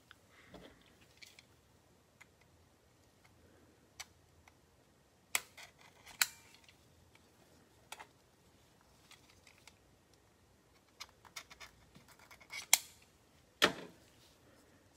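Small clear hard-plastic trading-card case being handled and opened: scattered short, sharp plastic clicks and taps, with a closer cluster and the loudest clicks near the end.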